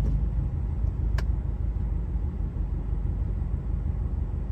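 Steady low rumble of a car's engine and road noise heard inside the cabin while driving, with a single short click about a second in.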